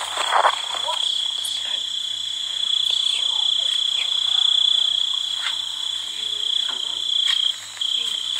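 Night insects trilling steadily at a high pitch, breaking off briefly near the end, with a few faint clicks.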